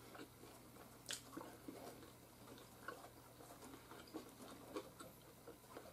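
Faint chewing of crispy oven-baked pizza rolls, with small scattered clicks from handling them and one sharper click about a second in, over a low steady hum.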